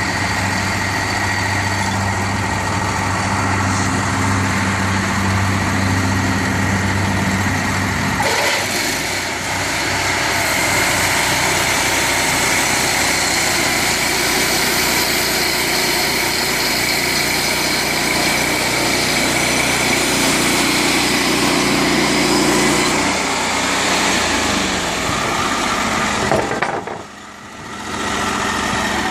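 Engine of a Timbery M285 band sawmill running steadily. About eight seconds in the sound changes, losing its low hum and gaining more high hiss, and near the end it drops away sharply for about a second before coming back.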